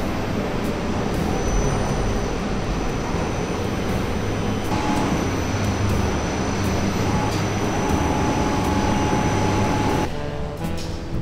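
Steady factory machinery noise, a dense hum and rumble with a thin, steady high whine. About ten seconds in, it drops away and music with a rising run of notes takes over.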